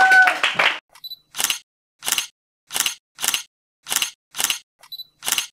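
DSLR camera firing a series of shots: a short autofocus confirmation beep, then seven separate shutter clicks spaced about half a second to a second apart, with a second beep just before the last click. In the first second, the tail of voices and clapping.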